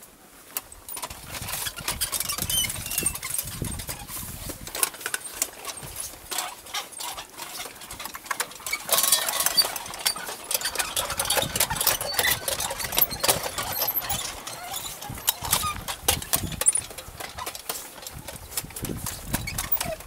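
A row of metal Buddhist prayer wheels in a mani wall, spun by hand one after another: a continual clatter of knocks and creaks from the turning drums, busiest around the middle.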